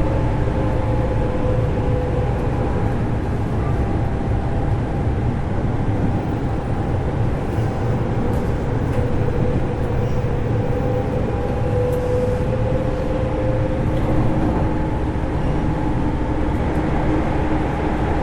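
Inside a JR East 205-series motor car, the steady rumble of wheels on rail is joined by the whine of its MT61 externally-fanned traction motors, heard as a few held tones with no clear rise or fall.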